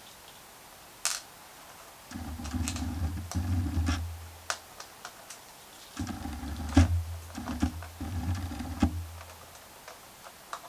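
Small cordless electric screwdriver whirring in short runs while driving laptop case screws back in, around two to four seconds in and again from six to about nine and a half seconds. Sharp clicks of screws and tools on the plastic case come in between.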